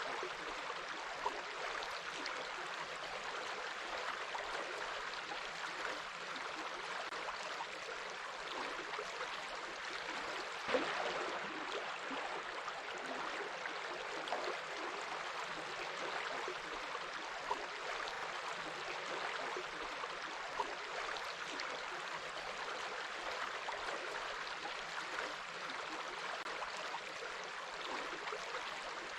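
Water flowing in a stream, a steady babbling rush with a few brief louder splashes.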